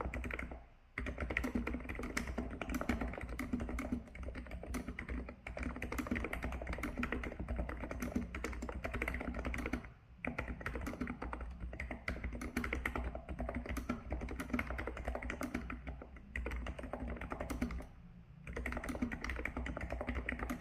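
Hansung GK898B Office Master keyboard with 50 g contactless capacitive switches being typed on in a steady, fast run of key strokes, with short pauses about a second in, about halfway, and near the end.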